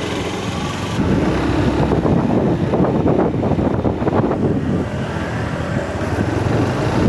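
Motorcycle running on the move, with wind rushing over the microphone.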